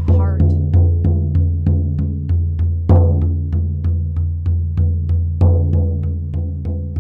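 Hand-held frame drum struck steadily with a beater, about three beats a second, each beat a deep ringing tone: a steady shamanic journey drumbeat. Louder beats stand out about three seconds in and again about five and a half seconds in.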